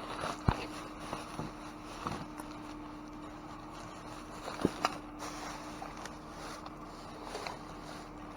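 Rummaging through trash in a dumpster: a few sharp knocks and rustles over a steady hum.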